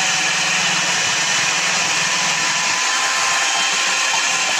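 Miyako 4-in-1 electric food processor running steadily at speed, a constant motor whir with a faint high whine, while it slices snake gourd.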